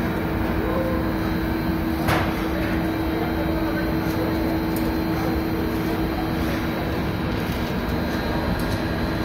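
Bakery production machinery running steadily, a conveyor line with a constant hum, with one sharp clank about two seconds in and a few faint clicks later.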